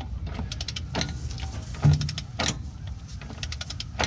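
Torque wrench ratcheting on a Jeep Wrangler JK front driveshaft bolt as it is tightened to 150 foot-pounds: quick runs of small metal clicks, with a louder clunk about two seconds in.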